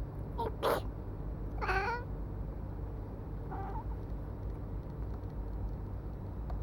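A person sneezes about half a second in, and a black cat answers with a meow about a second later, followed by a shorter, fainter meow.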